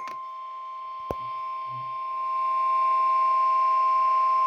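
Weather radio warning alarm tone: one long, steady, high-pitched tone that swells louder about two seconds in, with a single click about a second in. It is the alert tone that signals a warning is about to be read.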